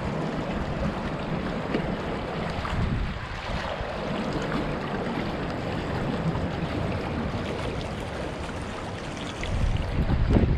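Steady rush of floodwater, mixed with wind buffeting the microphone; the low wind rumble grows louder near the end.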